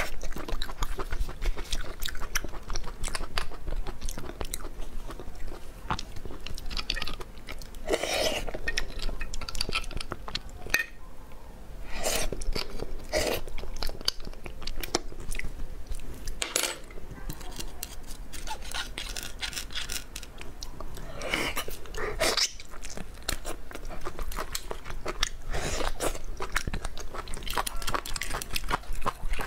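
Close-miked eating sounds: wet chewing, smacking and crunching of sauced beef bone marrow and the meat on the bones, with many small mouth clicks.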